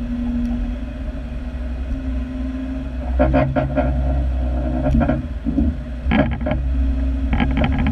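Off-road 4x4's engine running at low speed as it crawls up a rutted trail, a steady low drone with several louder bursts of throttle from about three seconds in.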